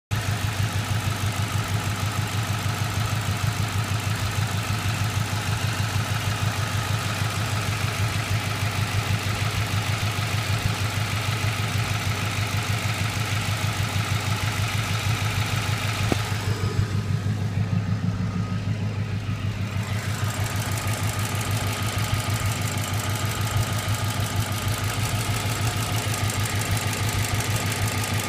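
Car engine idling steadily with a fast, even ticking running through it.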